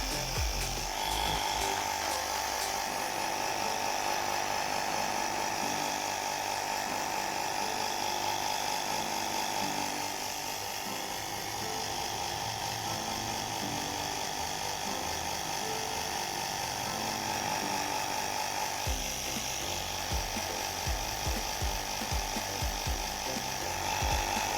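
AirBolt compact portable air compressor running steadily with an even, high-pitched hum as it inflates a car tyre, the pressure climbing from about 30 toward 40 psi.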